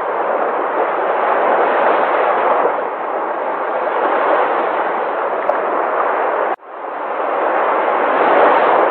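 Sea waves rushing and washing, a steady surge of noise that swells and eases. About two-thirds of the way through it cuts out for an instant and then builds back up.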